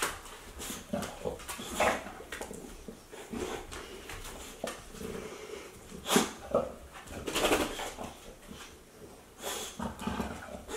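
A bulldog sniffing and licking at a person's face and head, a run of irregular short snuffling noises with a few louder bursts about six and seven and a half seconds in.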